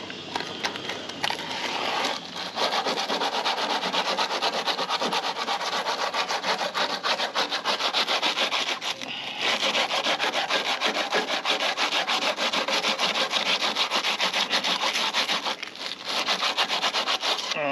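Abrasive paper rubbed by hand back and forth inside the bore of a boat's propeller-shaft P bracket in quick, even strokes, cleaning out the seat of the old cutlass bearing before the new one is glued in. The strokes start about two seconds in and stop briefly twice, about nine and sixteen seconds in.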